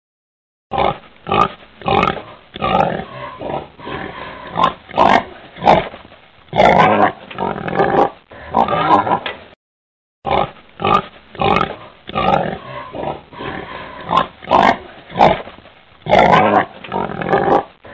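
Wild boar grunting in a rapid, irregular run that starts about a second in and stops briefly about halfway through before going on. It is a boar call of the kind played as a hunting lure.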